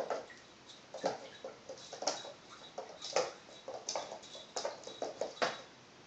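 Irregular taps, scuffs and skids on a hard laminate floor, about one or two a second, as a sphynx kitten jumps, lands and pounces on a wand toy.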